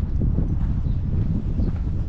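Footsteps on a concrete sidewalk while walking, over a low rumble of wind on the microphone.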